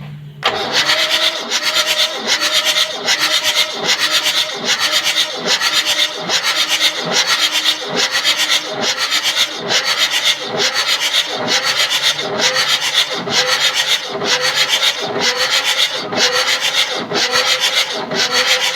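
Nissan SD33T inline-six diesel turned over on its starter motor with the glow plugs removed, so there is no compression: a steady, rhythmic cranking churn that does not catch. It stops suddenly near the end.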